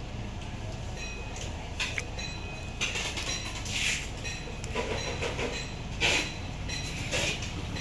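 Street traffic: a steady low engine hum, with vehicles passing and their hiss rising and fading several times.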